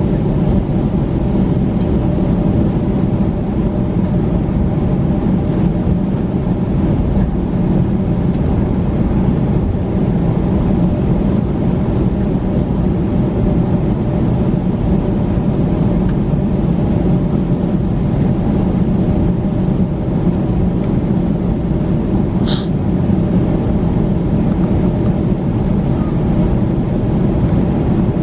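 Steady cabin noise of an Airbus A321-200 taxiing with its engines running: a low rumble with a hum and an airflow rush. A single short sharp click comes about 22 seconds in.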